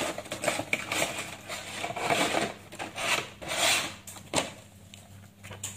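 A dry, uncooked lasagna sheet being scored with a knife on a hard surface to snap it in half: about half a dozen short rasping scrapes, fading toward the end.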